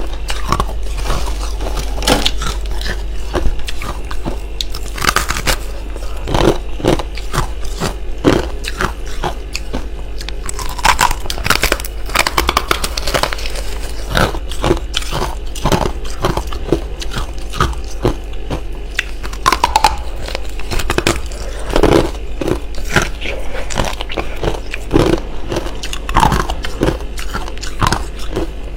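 Close-miked biting and chewing of freezer frost: irregular crisp crunches one after another, over a steady low hum.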